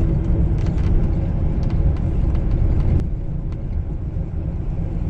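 Road noise inside a moving car's cabin: a steady low rumble of tyres and engine, a little quieter from about three seconds in, with a few faint clicks.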